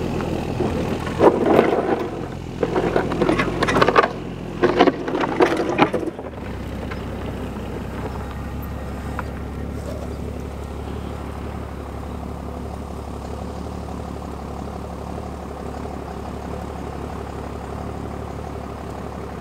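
Citroën CX 2500 D four-cylinder diesel revving in several loud, uneven surges as the car drives up out of a hole. About six seconds in the surging stops and a steady, even engine drone carries on.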